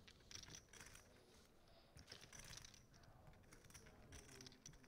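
Faint, irregular clicking of poker chips being handled at the table, over quiet room tone.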